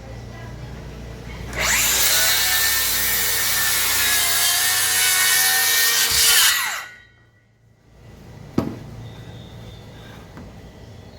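DeWalt DCS578 FlexVolt cordless circular saw spinning up and cutting through wood for about five seconds, its motor pitch steady under load, then winding down and stopping. A single sharp knock follows a couple of seconds later.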